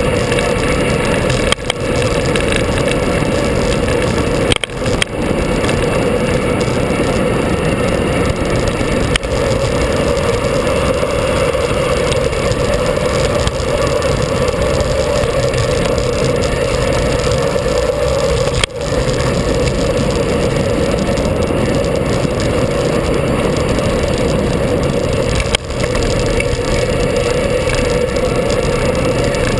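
Steady rush of wind over an action camera's microphone during a fast descent of a winding mountain road, with a few brief dips in the noise.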